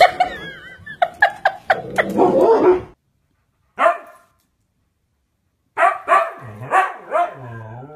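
A dog barking in several bursts of sharp barks. There is a run of quick barks in the first seconds, a single bark about four seconds in, and another run near the end that trails off in a falling note.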